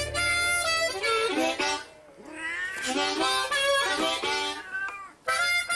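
A cat meowing several times, the calls gliding in pitch, over music.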